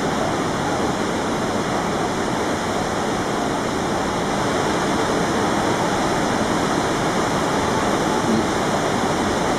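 Steady roar of the Iguazú Falls at the Devil's Throat heard from within the spray, with the churning of rough whitewater, unbroken and loud throughout.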